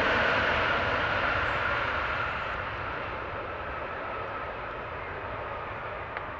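Boeing 777 jet engines, a steady roar with a whine near the middle of the range, fading steadily as the airliner draws away.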